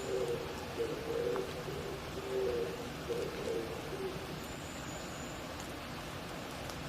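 Oriental turtle dove cooing in a run of low, repeated coos that stop a little under four seconds in, over a steady hiss of rain.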